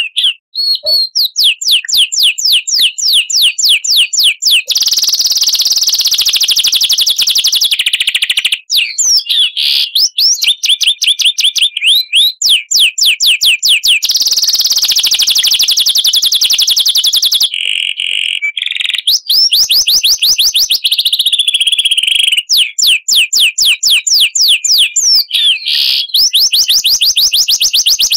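Songbird song played as a 'masteran' training recording. Fast runs of repeated sweeping whistled notes, several a second, alternate with long rapid-fire trills, the 'long shots' of the song, with brief breaks twice.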